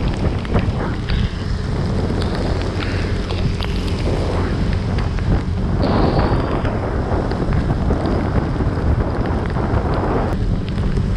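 Wind rushing over the camera microphone of a moving motorcycle riding in the rain, with road noise underneath. The rush swells about six seconds in.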